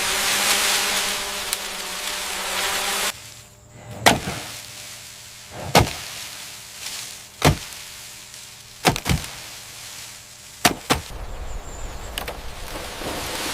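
A steady noisy hum with a few steady tones in it stops abruptly about three seconds in. Then come sharp knocks, roughly every one and a half to two seconds, two of them as quick doubles.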